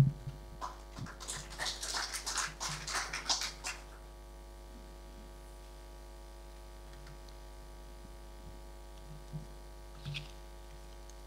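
A thump on the lectern microphone, then brief audience applause that dies away after about three seconds. A steady mains hum through the PA system follows, with a short paper rustle near the end.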